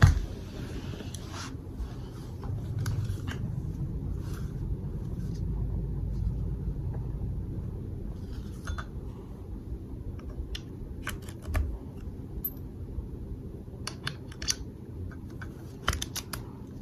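Metal parts of an IWI Uzi pistol being handled and fitted together during reassembly: scattered clicks and taps, a sharp one at the very start and several close together near the end, over a low steady hum.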